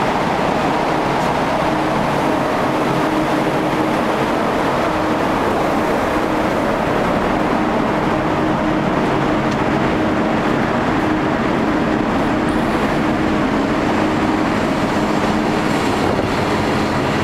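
A cargo ship's engine and machinery noise heard on deck: a steady, loud drone with a low hum in it.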